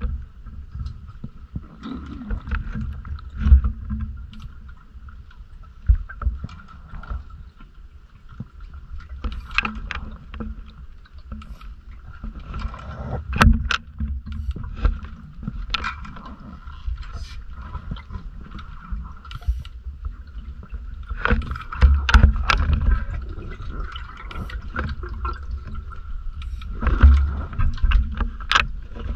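Underwater dive sound heard through a camera housing: a low rumble under a steady mid-pitched hum, broken every few seconds by short noisy bursts, a few of them stronger.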